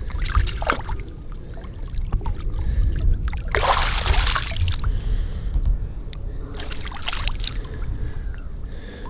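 Shallow lake water splashing and pouring as a carp is let go by hand and the angler then splashes and shakes water off his hands, the loudest splash about four seconds in, over a steady low rumble.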